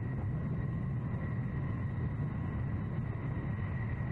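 Steady aircraft engine drone in flight: a constant low rumble with a steady high whine over it.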